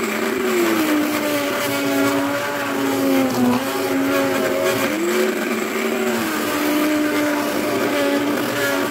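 Hand-held immersion blender running in a pot of cooked red lentil soup, puréeing it smooth. Its motor hum keeps going, with the pitch dipping and rising several times as the blade works through the thick soup.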